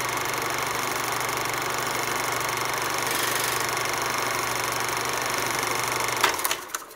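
Movie projector running: a steady whirring clatter over a low hum, stopping with a few clicks near the end.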